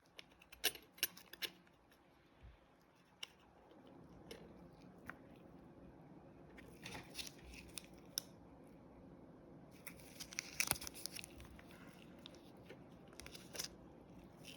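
Clicks, taps and scraping of small hard parts and tools being handled, in several short clusters, over a faint steady hum that comes in about four seconds in.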